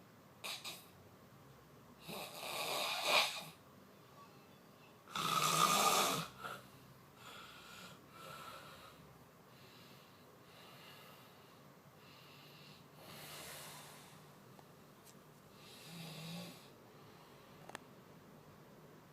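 A person snoring: a series of noisy snores a few seconds apart, the loudest about five seconds in and fainter ones later, with a short click near the end.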